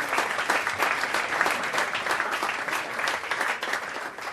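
Crowd applause, many hands clapping, that fades out near the end.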